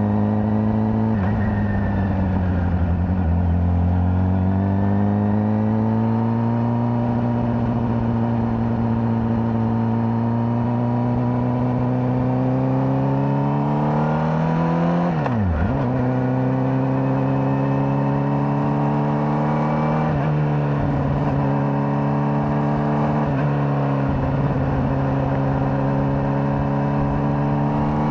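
Honda CBR600RR's inline-four engine with its stock exhaust, running under way as the bike rides: its pitch climbs slowly as it pulls and drops briefly at gear changes, about a second in, sharply around the middle, and twice more later.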